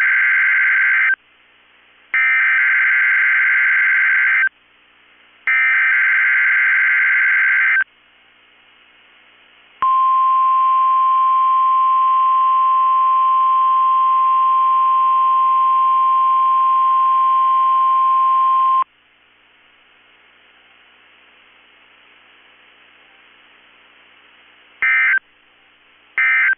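NOAA Weather Radio Required Weekly Test alert heard over the weather radio: the SAME header's screeching digital data burst, sent three times with short gaps (the first already under way), then the 1050 Hz warning alarm tone held steady for about nine seconds. A pause with faint hiss follows, then two short end-of-message data bursts near the end.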